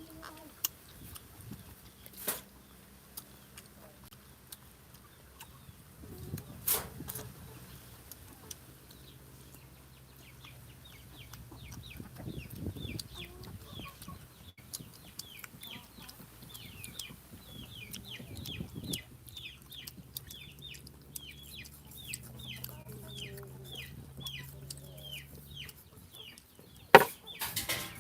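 Chickens clucking, with a long run of short, high, quick chirps through the middle and a low steady hum underneath. A few sharp snaps break in, the loudest near the end.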